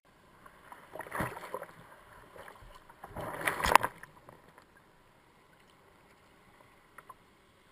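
Sea water splashing over a surf kayak's deck and the deck-mounted camera in two bursts, about a second in and again around three to four seconds in, the second louder. After that only faint water noise.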